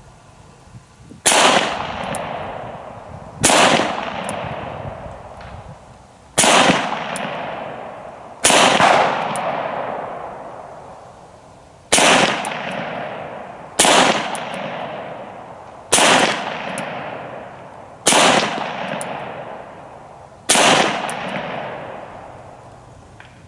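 Beretta 92X Performance 9mm pistol firing about nine single shots spaced roughly two seconds apart. Each sharp report is followed by a long fading echo.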